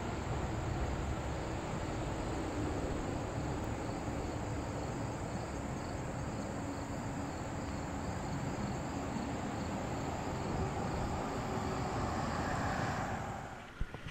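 Steady rushing noise of flowing creek water that drops away sharply near the end.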